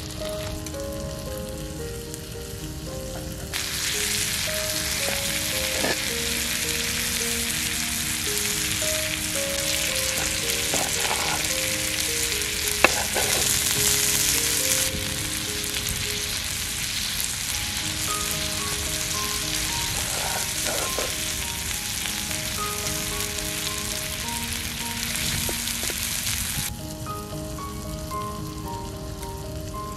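Pork belly and octopus sizzling in their fat on a clay roof tile over a wood fire. The sizzle comes in a few seconds in and drops away near the end, with a few light knocks and one sharp click about halfway through. A soft background melody of single notes plays throughout.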